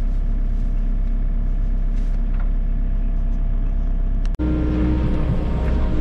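Volvo EC60E mini excavator's diesel engine running steadily, heard from inside the cab, with no breaker hammering. About four seconds in the sound cuts off abruptly and a louder, steadier engine note with a stronger hum takes over.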